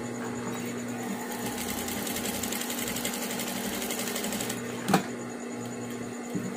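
Juki industrial single-needle sewing machine stitching fabric: a fast, even run of stitches starting about a second in and stopping after roughly three and a half seconds. Shortly after it stops comes a single sharp knock, the loudest sound.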